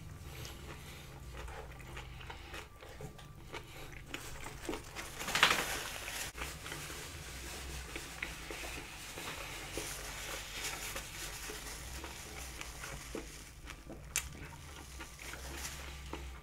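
Close-miked mouth sounds of a person chewing a mouthful of char siu pork bao, with small wet clicks, and one louder sharp noise about five and a half seconds in. A low steady hum runs underneath.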